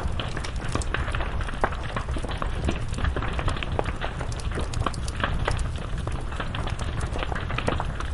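Wood fire burning: a steady low rumble of flames with dense, irregular crackles and pops from the burning wood.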